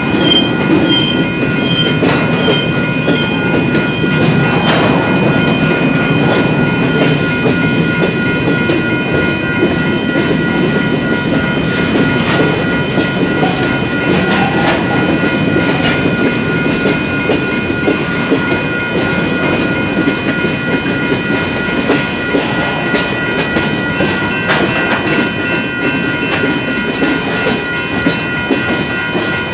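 BNSF freight train rolling steadily through a grade crossing, its wheels clacking over the rail joints under a continuous rumble. The crossing bell dings about twice a second, most clearly in the first few seconds.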